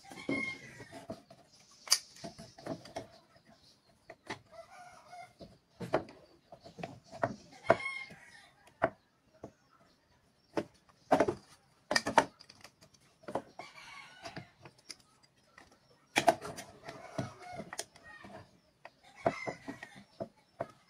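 Wooden boards knocked and shifted on a tabletop in short sharp clicks and taps. Repeated bird calls run in the background, coming and going every few seconds.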